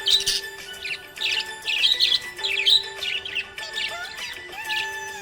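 Budgerigars chirping in quick, repeated twittering bursts, over background music with long held notes.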